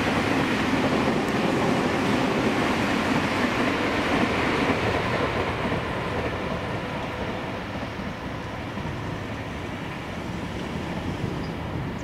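Electric commuter train running past on the track. The rail noise is strongest for about the first five seconds and then fades as the train moves off.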